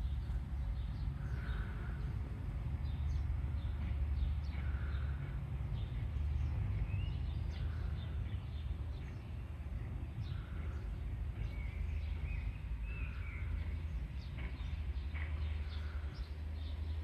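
Honeybees buzzing around flowering lavender as a steady low hum. Over it, birds call in the background: a soft note repeated every couple of seconds and a few short chirps.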